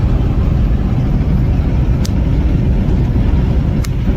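Steady low road rumble of a vehicle driving at highway speed, heard from inside, with two brief sharp clicks about two seconds in and near the end.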